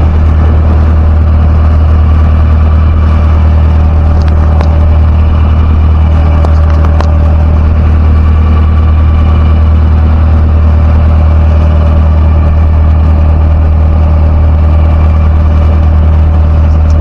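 Fishing boat's motor running steadily under way, a loud, even low drone. A few faint clicks sound about four to seven seconds in.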